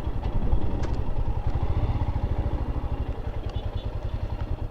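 Motorcycle engine running with an even, rapid low pulse, fading slightly and dropping away near the end.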